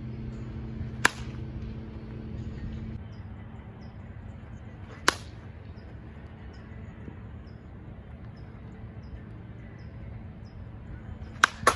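A baseball bat hitting pitched balls with sharp cracks: one about a second in, another about five seconds in, and two in quick succession near the end.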